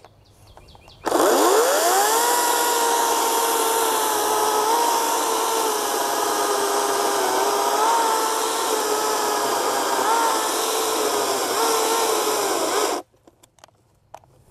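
Ryobi 40V 14-inch battery chainsaw starting up about a second in with a quick rising whine, then running steadily while cutting through a log, its pitch dipping slightly under load. It cuts off suddenly about two seconds before the end, mid-cut, as its first battery runs flat.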